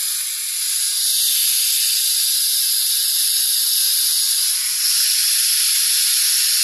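Garden hose spray nozzle running: a steady hiss of water spraying onto potted succulents.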